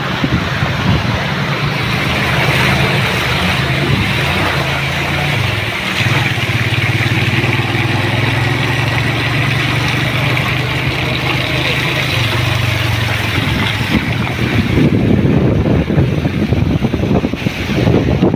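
Motorcycle engine running steadily while riding through floodwater, under a continuous rush of water and air. About three-quarters of the way in the engine hum fades under gusty wind buffeting on the microphone.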